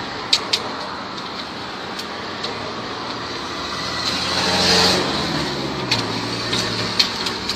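Steady road traffic noise with a vehicle passing, swelling and fading about four to five seconds in, and scattered sharp clicks.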